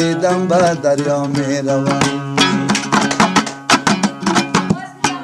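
Instrumental break in an Afghan folk song: a fast plucked-string melody over steady held low notes.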